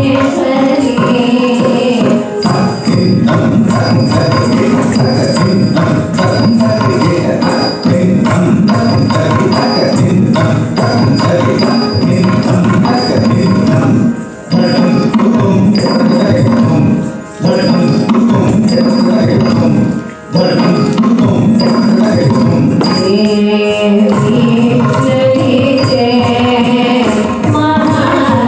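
Carnatic dance music with drum percussion keeping a steady beat, broken by three short pauses about 14, 17 and 20 seconds in.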